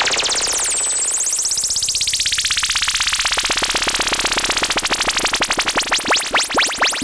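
Arturia MiniBrute analogue synthesizer playing a fast stream of repeating pulses. The filter sweeps its brightness down and back up over the first couple of seconds, and the pulses slow down near the end.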